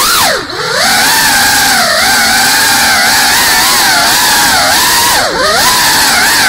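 FPV quadcopter's motors and propellers whining, the pitch rising and falling with the throttle. The whine drops sharply and climbs back about half a second in, and twice more near the end, as the throttle is cut and punched again.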